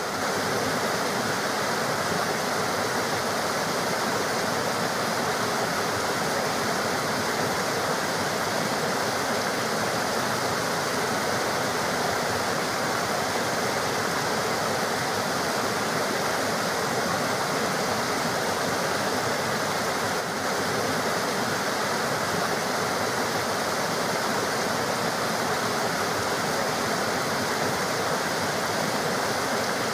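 River water running: a steady, even rush of flowing water with no breaks.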